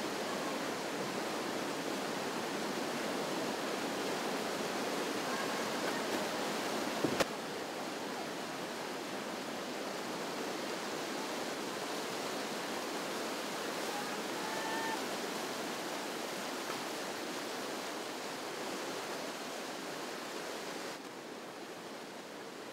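Steady rush of whitewater rapids, with a single sharp click about seven seconds in.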